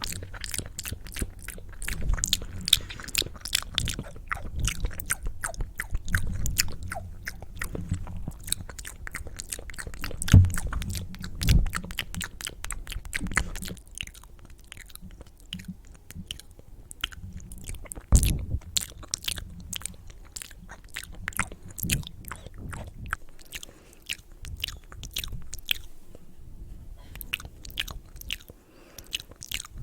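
Close-miked ASMR mouth sounds: rapid, uneven wet clicks and smacks of tongue and lips, with a few louder low thumps in the middle.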